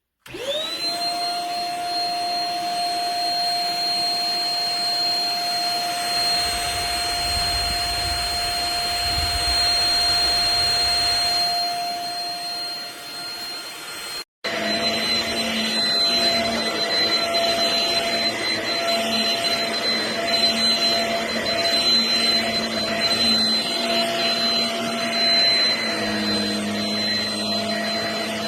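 Shark HV322 Rocket corded stick vacuum switching on, its motor spinning up in a quick rising whine to a steady high whine over the rush of suction. After a brief cut about halfway, it runs on with the rush of air growing uneven and fluctuating.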